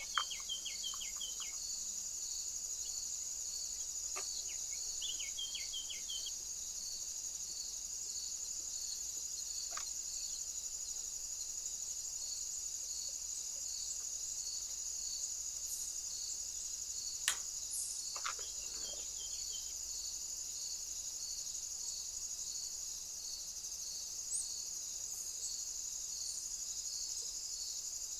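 Crickets trilling steadily, a high continuous chirring with a regular pulse about every two-thirds of a second. A few short high chirps sound near the start, around five seconds in and around eighteen seconds in, and a sharp click comes shortly before the later chirps.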